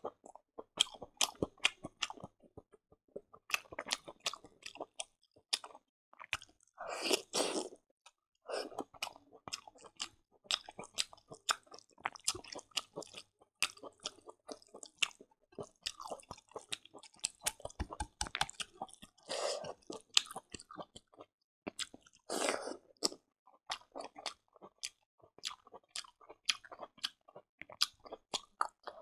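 Close-miked ASMR chewing of pork and rice: a rapid run of wet mouth clicks and smacks, with three louder, longer crunchy chews.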